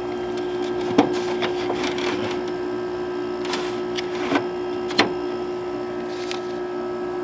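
Older Haier HWF05XCA 5000 BTU window air conditioner running with its Matsushita compressor and fan on, a steady hum. Several sharp clicks and knocks of handling come over it, loudest about a second in and again about five seconds in.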